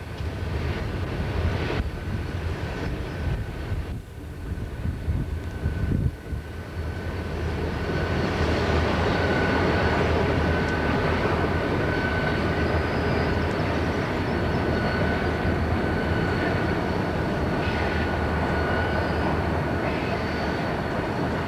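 Diesel-hauled train passing: a steady low engine drone, with the noise of wheels on rail swelling after a few seconds and then holding, and a thin steady high tone running over it.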